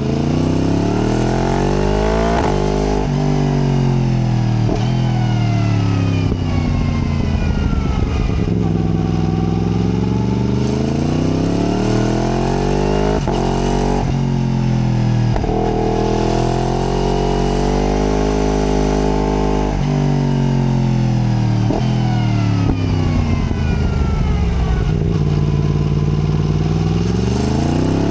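Yamaha MT-10's crossplane inline-four engine heard from the rider's seat, revving up through the gears and easing off again several times. The pitch climbs, then drops sharply at each gear change, and sinks smoothly as the bike slows.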